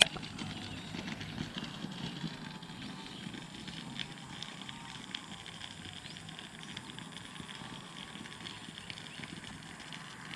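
Steady outdoor background noise, a high hiss with faint calls through it, and a few small clicks of handling.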